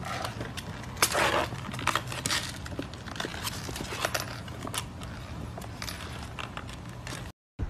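A golden retriever puppy's claws scrape and click on a plastic patio chair as it scrambles onto the seat. A run of short scratches and taps is heard, the loudest about a second in.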